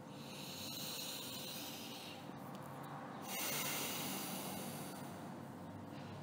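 A person breathing slowly and audibly close to the microphone: one long, airy breath, a short pause, then a second, louder breath about halfway through.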